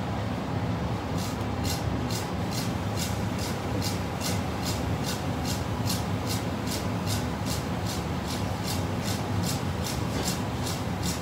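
Heavy kitchen knife making rapid, evenly spaced cuts through a white fish fillet down onto the cutting board, about four crisp strokes a second, starting about a second in, over a steady low hum.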